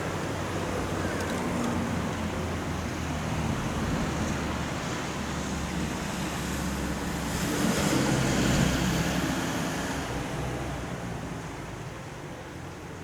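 Rumbling running noise of a passing electric train, swelling to its loudest a little past the middle, then fading as it moves away.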